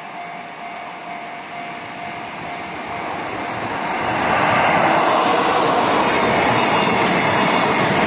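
Level-crossing warning alarm ringing as a JR Freight container train hauled by an EF66 electric locomotive approaches. The train noise swells from about three seconds in and is loud from about four and a half seconds as the locomotive and container wagons pass at speed, drowning out the alarm.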